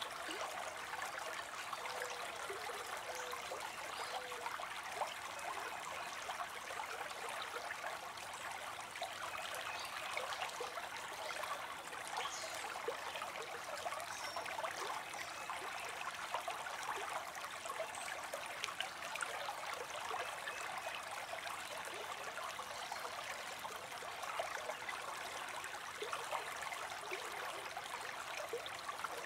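Running stream babbling steadily, an even rush of water.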